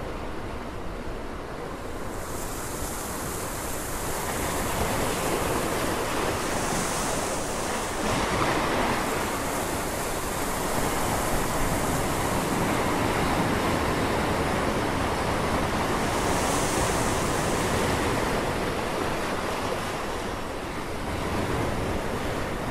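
A continuous rushing noise that swells and eases over a few seconds at a time, with hissing peaks now and then.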